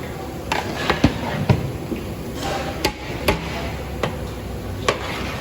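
Metal ladle knocking against a large cooking pot, about seven irregular sharp clanks while the contents are stirred, over a steady hiss.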